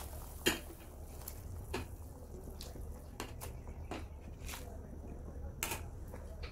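Ingredients dropping and splashing into a pot of broth, with a few short sharp taps of a bowl and a metal ladle against the pot.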